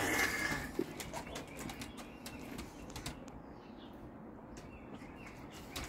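A toddler splashing and slapping his hands in the water of a plastic water table, in short irregular splashes, with a brief high-pitched squeal from the child at the start.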